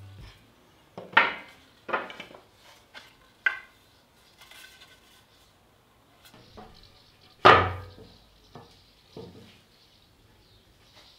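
Wooden boards being set down and shifted into place, knocking against each other and the steel table frame in a few sharp knocks, the loudest about seven and a half seconds in.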